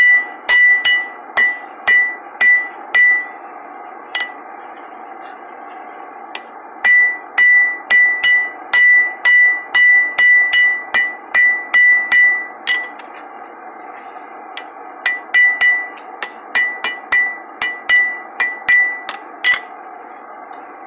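Hand hammer striking a hot iron bar on a steel anvil in three runs of blows, about two a second, with short pauses between. Each blow has a bright anvil ring.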